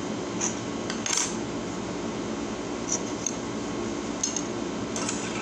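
A handful of light, sharp clicks and rustles from cutlery and the waffle box being handled, spaced a second or so apart, over a steady low background hum.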